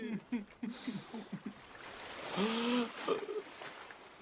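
Cartoon characters' weary vocal sounds: a few short low groans, then a longer sighing moan about two and a half seconds in.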